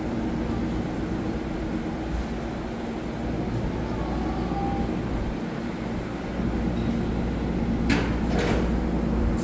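EMU3000 electric multiple unit pulling out of the platform, a steady electric hum that grows louder about six seconds in as the cars pass. A short rush of noise comes about eight seconds in.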